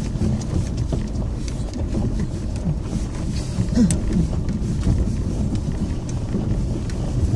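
Inside a car rolling down a steep gravel road: a steady low rumble of tyres on loose gravel and stones, with scattered small sharp ticks.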